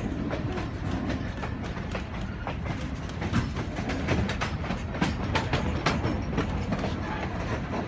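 Steam train's passenger coach rolling along the track: a steady low rumble with many sharp, irregular clicks of the wheels over the rails.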